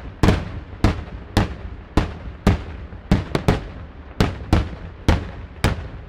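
Daytime fireworks display: aerial shells bursting high overhead in a rapid string of loud bangs, about two a second and a dozen in all, each fading quickly.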